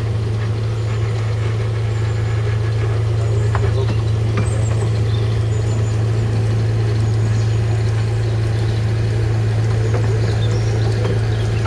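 Alan Keef 0-6-2 diesel locomotive's 2-litre Perkins engine running with a steady low hum as the train approaches, growing slightly louder.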